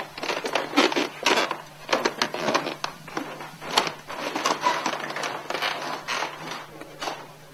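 Footsteps climbing stairs: a run of irregular thuds and scuffs, several a second, with clothing rustle.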